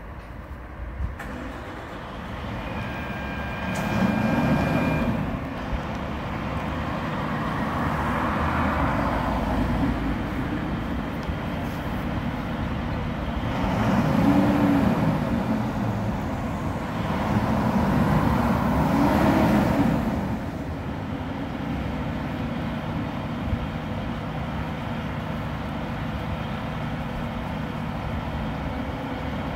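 Cars passing on the road one after another, each swelling and fading, the loudest passes about four, fourteen and eighteen seconds in, over a steady low engine hum.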